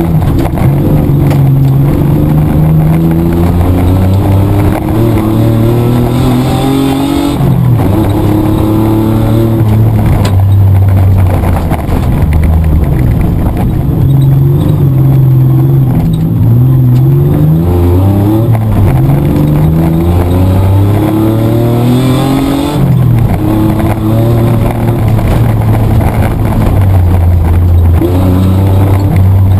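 Mitsubishi Triton's petrol engine heard from inside the cabin at race pace, its pitch climbing and dropping over and over as the driver accelerates, shifts and backs off through corners.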